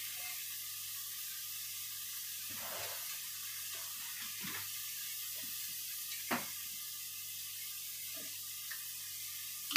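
Chicken chilli paste sizzling gently in a wok on the stove, a steady faint hiss, with a light click about six seconds in.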